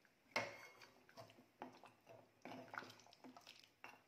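Metal ladle stirring thick mutton curry in a pressure cooker. A sharp clink of ladle on pot comes about a third of a second in, then scattered softer scrapes and wet squelches.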